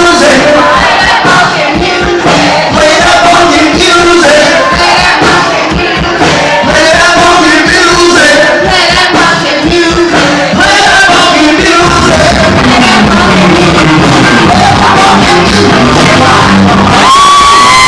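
Live band playing loudly with a male singer and crowd shouting. Near the end a single high note is held steady.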